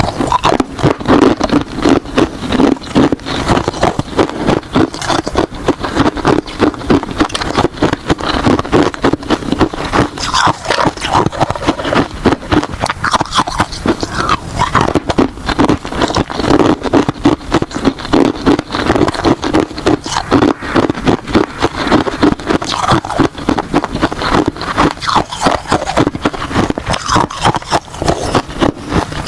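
Ice being bitten and chewed close to the microphone: a dense, uneven run of rapid crunches and crackles.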